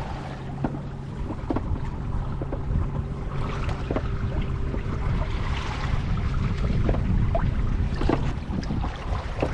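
Wind buffeting the microphone and water slapping and sloshing against a kayak's hull in rolling waves, over a steady low hum from the kayak's solar-powered electric motor that stops near the end.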